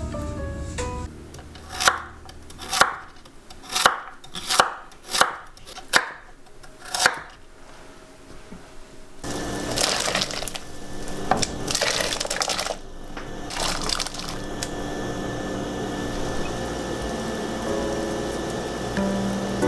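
A knife chopping on a cutting board, about eight slow, separate strokes; then chopped vegetables tip into a pot of steaming water, and the pot boils with a steady bubbling hiss and a few knocks.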